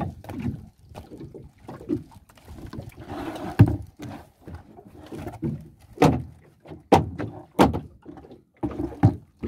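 Irregular knocks and thuds on a small fishing boat as fish and a wooden cutting board are handled on a cooler lid, with a brief rustle about three seconds in.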